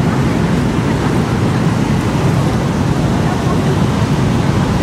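Steady rumble of street traffic, with motorbikes and cars passing close by.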